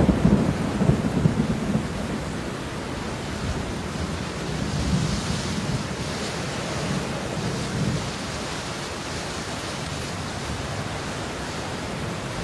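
Steady rain falling, with thunder rumbling: a louder low roll at the start that fades within about two seconds, then softer rumbles under the rain's hiss.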